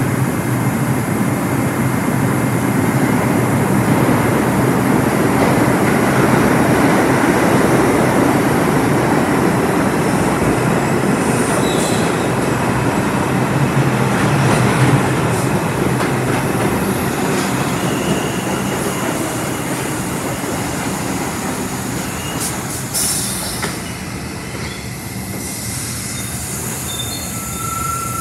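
R142 subway train pulling out of the station and running past, its wheels and motors rumbling loudly. The noise peaks about halfway through, then fades as the train moves away down the tunnel.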